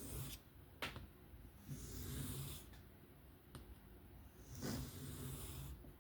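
Knife blade drawn slowly across a sharpening stone in freehand strokes: three long swishing scrapes about two seconds apart, with a sharp tick a little under a second in.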